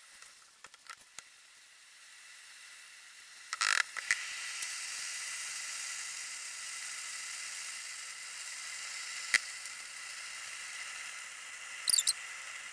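Soap scraps boiling in salt water in a steel pot, sizzling and crackling with sharp pops, faint at first and louder from about four seconds in. This is the salt-water boil of curd soap, which washes impurities out of the soap. The footage, and with it the sound, is sped up.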